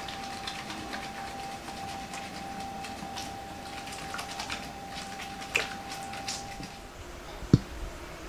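Hands lathering shampoo into a wet dog's fur: quick, irregular, soft wet clicks and squelches, with a single thump near the end.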